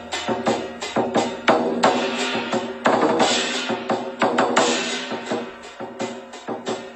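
Lion dance percussion: a drum beaten in a fast, steady rhythm of several strokes a second, with ringing cymbal crashes washing over it.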